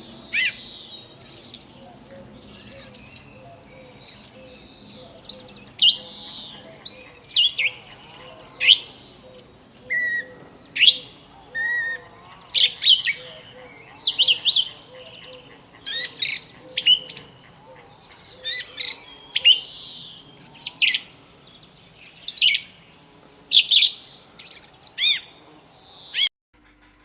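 A bird chirping: a long series of short, sharp, sweeping chirps, about one or two a second, over a faint lower chatter. It stops abruptly near the end.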